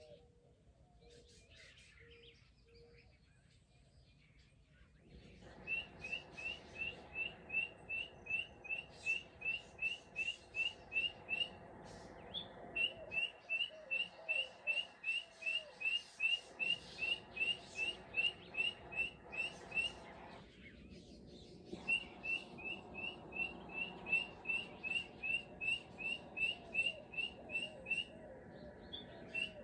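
Guineafowl-style call: short rising chirps repeated very evenly at about two and a half a second, in long runs that start about five seconds in and pause briefly twice.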